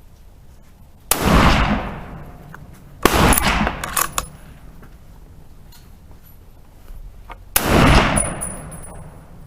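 Three loud rifle shots, each with a short echoing tail: the second comes about two seconds after the first, and the third about four and a half seconds later. A fainter sharp report follows about a second after the second shot.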